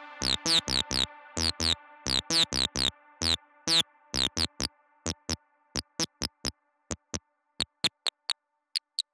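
Electronic drum-machine music played from a homemade Arduino MIDI mixer: a beat of sharp hits, each with a quick downward sweep on top, over a held synth chord. The chord fades out by about halfway. The hits carry on alone, grow sparser, and stop near the end.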